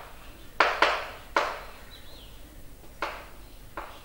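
Chalk writing on a chalkboard: short, quick strokes of chalk against the board, a few together about a second in and a couple more near the end.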